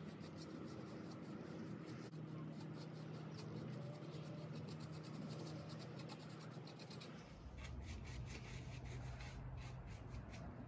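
Faint bristle brush strokes on the wood of a turned oak burl hollow form as finish is brushed on: a quick, even run of soft scratchy swishes, several a second.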